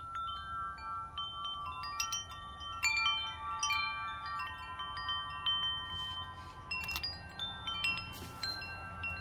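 Sympathy wind chime ringing: many clear, sustained tones struck at irregular moments and overlapping, busiest around the middle, over a steady low rumble.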